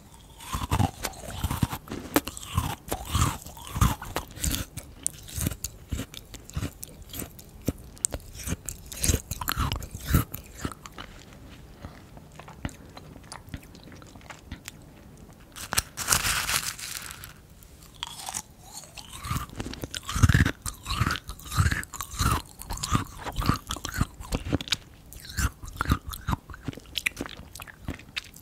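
Close-miked crunching and chewing of frozen Dippin' Dots ice cream beads: irregular crisp crackles and crunches, with a brief louder rustling burst about midway.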